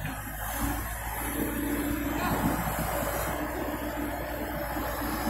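Diesel engine of a loaded Isuzu lorry running steadily, its pitch wavering a little.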